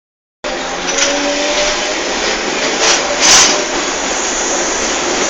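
Electric commuter train unit 1024 running with a loud, steady rushing roar, which the uploader calls roaring a lot, and a sharp knock about three seconds in.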